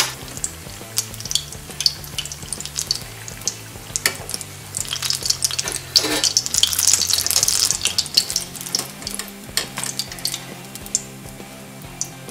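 Bread pockets deep-frying in hot oil, a steady sizzle and crackle of fine pops, growing denser and louder for a few seconds around the middle as the pockets are lifted out with a wire strainer.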